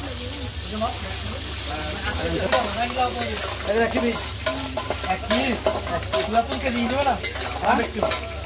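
Crab pieces sizzling as they fry in oil in an aluminium karahi. From about two seconds in, a metal spatula stirs and scrapes them, clinking sharply against the pan many times.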